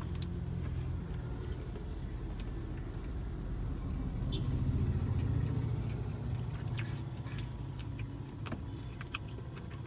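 Low, steady vehicle rumble heard from inside a car's cabin, swelling about four to six seconds in, with a few faint clicks near the end.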